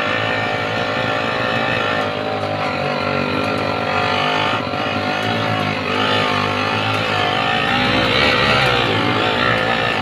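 Yamaha 80cc motorcycle engine running steadily under load, its pitch wavering up and down as the throttle and load change.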